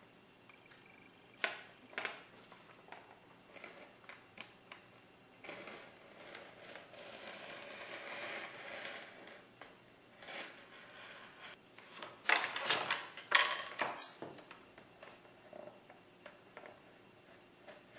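Utility knife drawn along a steel ruler, cutting into a model plane's foam wing: scratchy cutting strokes with small clicks and taps from the knife and ruler. The longest scratchy stretch comes in the middle, and the loudest run of clicks about two-thirds of the way through.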